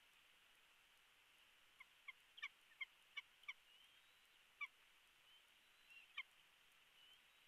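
Bald eagle calling at the nest: a quick run of about seven short, high, clipped notes, followed by two more single notes a second or two apart.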